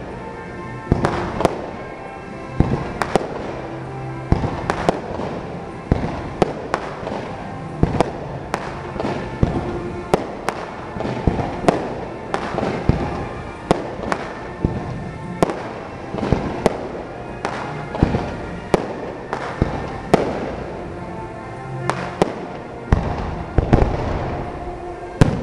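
Fireworks going off in quick succession: sharp bangs of bursting shells at an irregular pace of about one to two a second, with music playing underneath.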